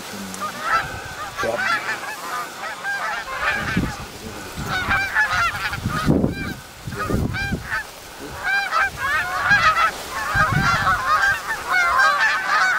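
A flock of geese honking, many overlapping calls that grow thicker and louder toward the end as the birds draw closer.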